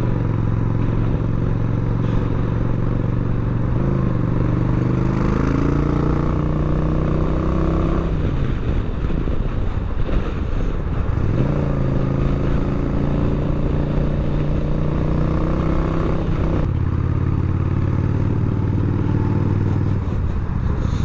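Yamaha Bolt's air-cooled V-twin engine pulling while the bike is ridden, its pitch climbing twice and dropping at a gear change about eight seconds in and again near seventeen seconds, over steady rushing riding noise.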